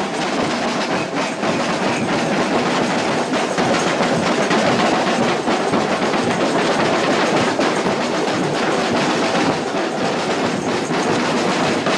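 Dense, continuous rattling din of a carnival parade: hand percussion such as shakers mixed with crowd noise.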